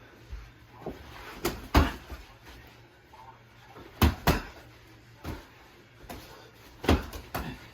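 Punches from boxing gloves landing in sparring: scattered sharp thuds, some in quick pairs or threes.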